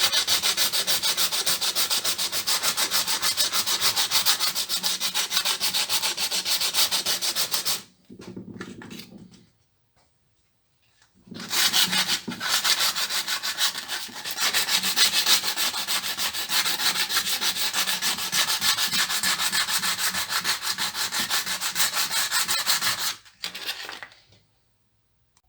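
Hand sanding of the cured epoxy repair on a plastic steering-wheel rim, in quick, even back-and-forth strokes. It breaks off for about three seconds around eight seconds in, then resumes and stops near the end.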